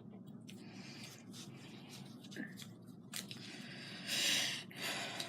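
Small scrapes, taps and rustles of craft materials being handled on a tabletop, with a louder scraping rustle about four seconds in.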